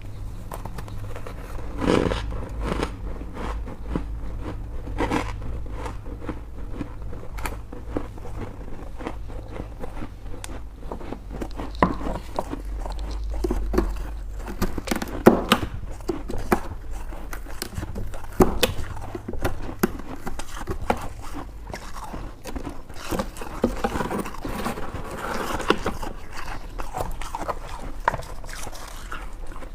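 A person biting and chewing white freezer-frost ice in many irregular crisp crunches, over a low steady hum.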